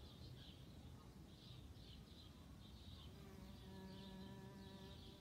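A bumblebee's wings buzzing, a steady low hum with overtones that starts about three seconds in, faint and close. Faint high chirps repeat in the background throughout.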